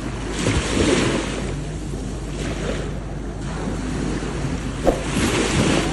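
Small sea waves washing in at the shoreline, swelling three times, with wind buffeting the microphone.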